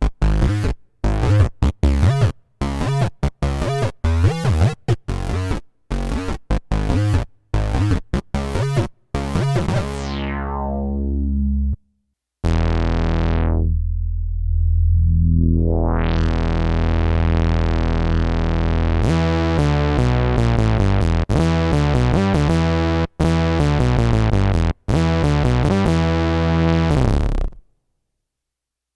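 Nord Stage keyboard playing Mopho-style analog synth patches. It opens with short, clipped stabs, then a held low note whose filter closes down and sweeps open again. A run of quick notes follows and stops about a second before the end.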